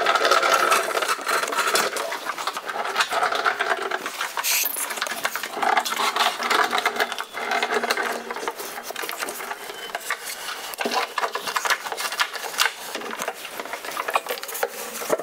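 Furniture dolly casters rolling and rattling over a bare subfloor under a tall wooden cabinet, a dense run of clicks and scrapes, with knocks and rubbing as the cabinet is nudged into place against the wall.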